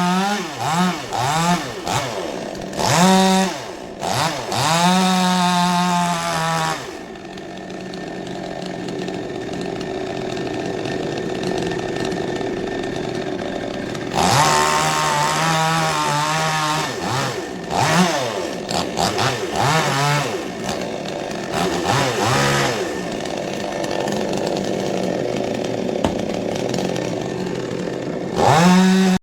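Two-stroke chainsaw engine revving up and down in repeated throttle bursts, dropping back between them to a lower, steadier run.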